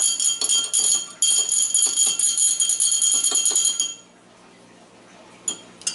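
A metal teaspoon stirring sugar into a cup of water, clinking rapidly against the cup so that it rings. It stops about four seconds in, followed by a couple of single clinks near the end.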